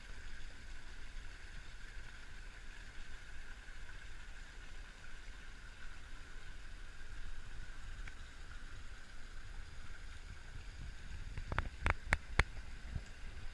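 Small waterfall trickling into a rock pool: a steady splashing hiss over a low rumble, with a few sharp clicks about three-quarters of the way through.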